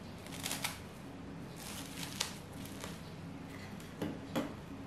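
Plastic cling film crinkling and rustling as it is pulled and pressed around a food container, in short bursts about half a second, two seconds and four seconds in.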